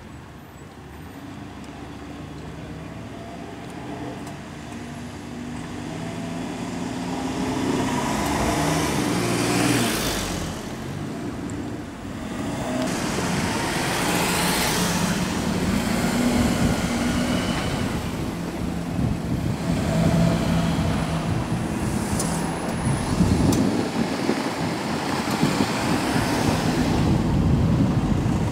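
Road traffic: several cars and trucks passing one after another, each engine and tyre noise swelling and fading, louder toward the end.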